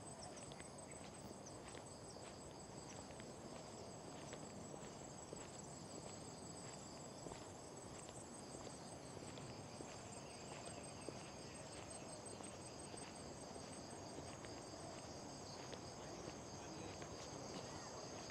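A steady chorus of insects, crickets and the like, making several continuous high-pitched trills, with soft irregular footsteps on the trail beneath it.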